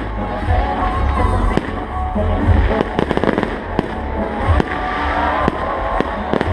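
Aerial fireworks going off in quick succession: many sharp bangs over a deep rumble of booms, with flurries of rapid crackling about three seconds in and again near the end.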